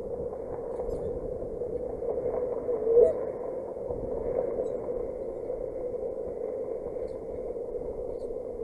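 Wind buffeting an outdoor nest-cam microphone: a steady rushing noise, with one short louder sound about three seconds in.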